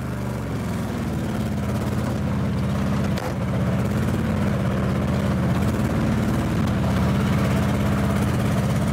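Classic Lada's four-cylinder engine running rough and uneven under way: it sounds like it is firing on only two cylinders, maybe one, after its damaged pistons were patched with glue and epoxy.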